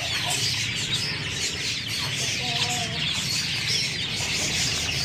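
A group of young desi chicks peeping continuously: many short, high cheeps sliding downward and overlapping, with a brief lower call about two and a half seconds in. A steady low hum runs underneath.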